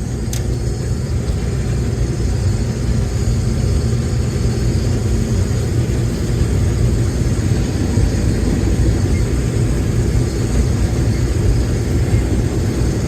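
Case IH 2188 combine running steadily while harvesting corn, a continuous low drone, with a single short click just after the start.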